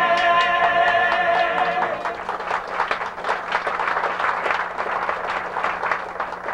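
Stage-musical cast singing the final held chord of a song with vibrato, cutting off about two seconds in, then audience applause. A steady low hum runs underneath.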